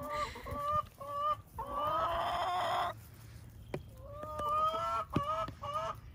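Backyard chickens clucking in a run of short calls, about three a second, with one long, louder harsh call about one and a half seconds in; after a short lull the clucking picks up again, each call rising in pitch.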